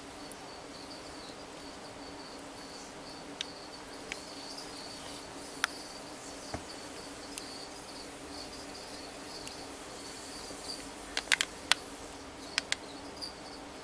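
A steady, high, cricket-like trill over a low steady hum, with scattered sharp clicks and a quick cluster of louder clicks near the end.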